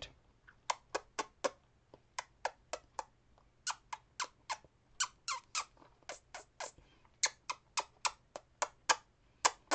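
Kissing and lip-smacking done by mouth as an impression of a couple making out: a run of short wet smacks in quick clusters, some with brief squeaky slides in pitch.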